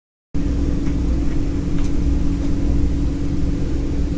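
Running noise inside a moving Vande Bharat Express electric train coach: a steady low rumble with a steady hum over it and a few faint ticks. It cuts in after a moment of silence.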